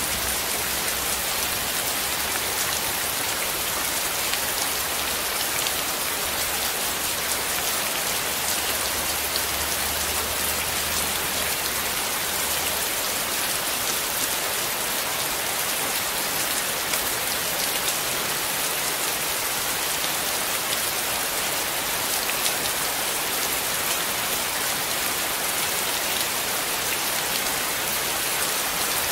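Steady rain: an even hiss dotted with the small ticks of individual drops.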